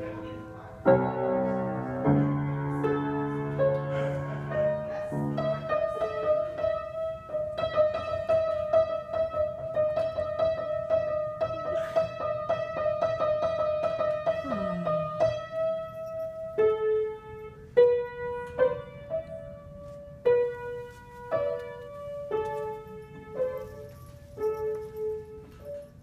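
Piano music: a few seconds of chords, then a long held note for about ten seconds, then single notes played about one a second.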